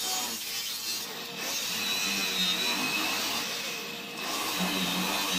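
Angle grinder with a cut-off wheel cutting a steel bracket off a rear axle housing: a steady high whine over the hiss of the wheel biting the metal. The cutting noise eases off briefly about four seconds in as the wheel is lifted, then goes on.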